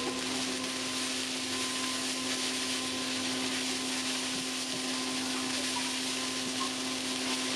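Fried rice being stirred and tossed with a spatula in a hot nonstick wok: a steady frying hiss with soft scraping, over a steady low hum.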